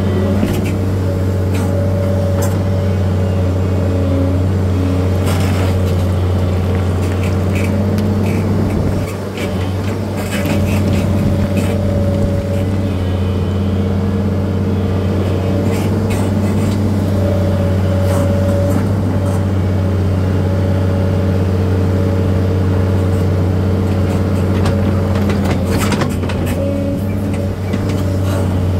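An engine running at a steady speed as a constant low drone, with scattered clicks and knocks over it. The drone dips briefly twice.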